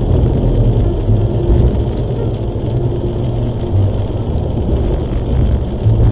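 Steady low rumble of a vehicle driving on a wet highway, heard from inside the cab: engine and tyre noise picked up by a dashcam.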